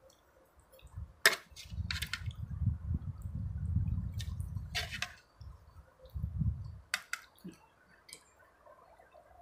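A metal ladle clinking about four times against a soup pot while hot soup drips and pours from it, over a low rumble.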